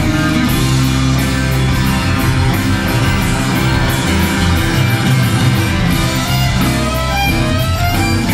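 Live Americana band playing an instrumental passage without vocals: strummed acoustic guitars over electric bass, drums and organ, with a fiddle playing short sliding phrases near the end.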